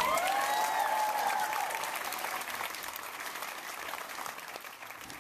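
Crowd applauding, with a whoop or two near the start; the clapping fades away gradually.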